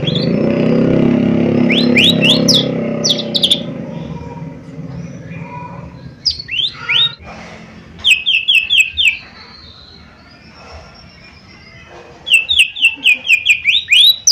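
A cucak ijo mini (small leafbird) calling with quick upswept chirps, ending in a rapid run of about ten chirps near the end. A loud low rumble sits under the first few seconds and fades out.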